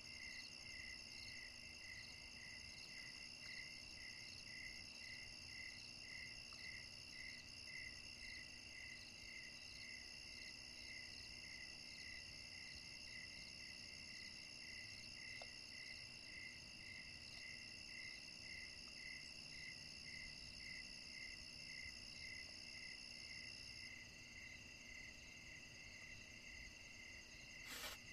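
Crickets and other night insects chirping and trilling faintly, one chirping in an even rhythm of about one and a half chirps a second under higher, steady trills. The highest trill stops about four seconds before the end, and a single click follows near the end.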